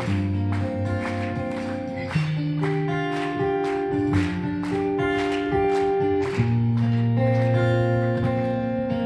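Live band playing an instrumental passage of a slow pop-rock ballad, guitar strumming over held chords and bass, with no singing. The chords change every few seconds.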